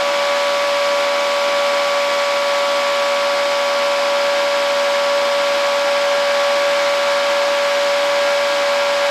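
Cooling fan of a MOSFET full-bridge induction heater running, a steady rushing noise with a steady mid-pitched whine over it.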